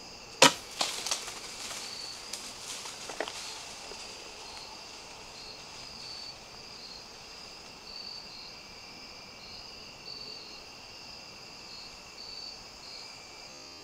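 Recurve bow shot: a single sharp thump about half a second in, then a few seconds of crackling rustles as the deer bolts through dry leaves after the missed shot. Crickets chirp steadily throughout.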